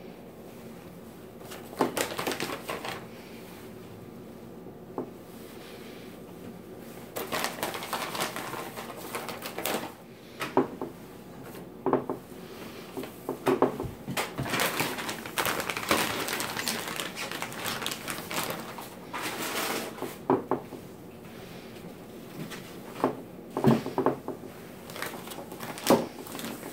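Hands handling a plastic bag of defrosted ravioli and laying the pieces in glass baking dishes: scattered soft knocks and clicks among stretches of rustling.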